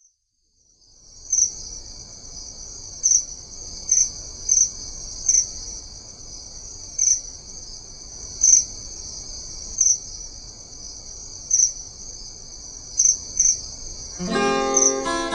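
A steady, high-pitched insect chorus like crickets, with a louder chirp cutting through about every second at uneven intervals. About a second before the end, an acoustic guitar comes in, plucking chords.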